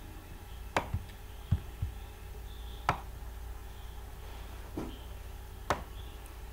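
Computer mouse button clicks: a few sharp single clicks a second or two apart, over a faint steady low hum.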